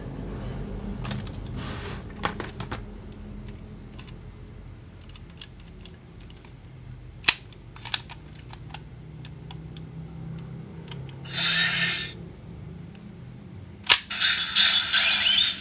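Hard plastic Ultraman transformation toy being handled: scattered clicks and rubbing, a short burst of hiss a little past the middle, then a sharp click near the end after which the toy's speaker starts an electronic sound effect with gliding tones.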